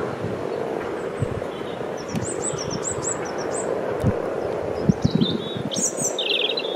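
Breeding chorus of common frogs, a steady mass of croaking, with wind thudding on the microphone. A bird gives a quick run of high chirps about two seconds in and a chirp and trill near the end.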